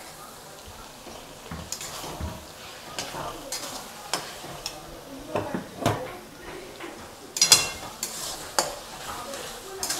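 Flat spatula stirring raw chicken mince into hot oil-fried masala in a metal kadai: irregular scrapes and knocks against the pan over a low sizzle. The loudest knocks come about seven and a half seconds in.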